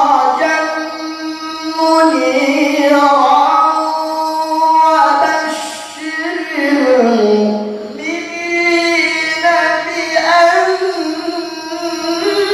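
A male qari reciting the Qur'an in melodic tilawah style through a hand microphone, holding long, ornamented notes. About six seconds in, his voice slides down to a low note, then climbs again.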